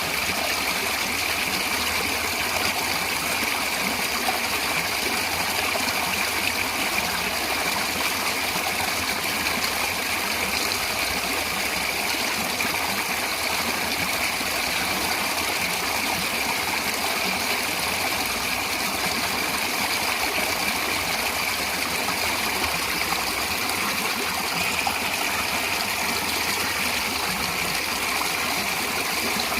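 Natural running water flowing steadily, an even, unbroken water noise with no change in level.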